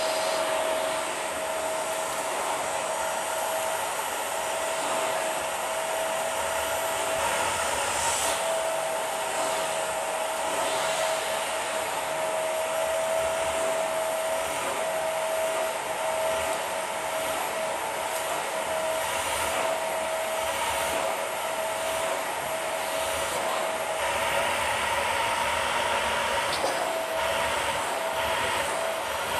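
Dyson vacuum cleaner running steadily through its hose attachment, a constant motor whine over a rushing hiss of air. Now and then faint crackles stand out as crunchy debris is sucked off the shag rug and up the hose.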